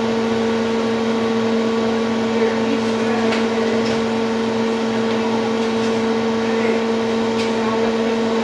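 A running household appliance motor: a steady hum with a whooshing noise, with a few faint clicks.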